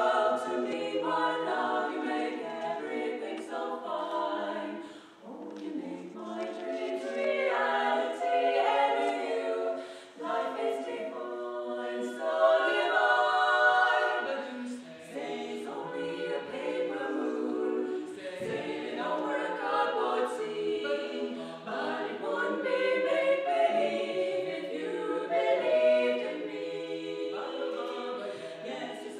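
Female vocal quartet singing a cappella in harmony, four voices together in phrases with short breaths between them.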